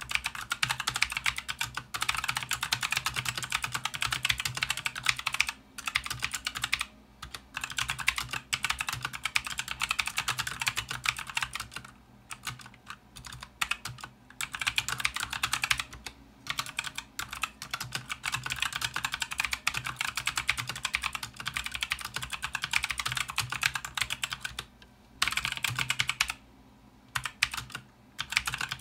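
Fast typing on a Redragon Vata Pro K580 RGB Pro full-size mechanical keyboard with Outemu switches: dense runs of key clicks, broken by brief pauses between words, the longest pause near the end.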